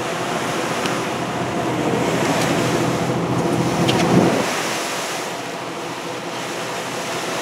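Wind and water rushing on the deck of a moving tour boat, over the boat's steady engine drone. The rush swells to its loudest about four seconds in, then eases.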